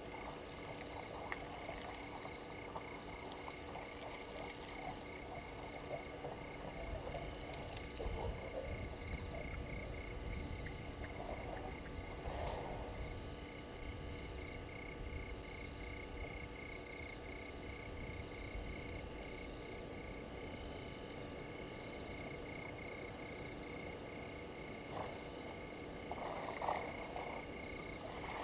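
Night chorus of crickets and frogs: a continuous high pulsing insect trill, with a short chirping call repeating every few seconds.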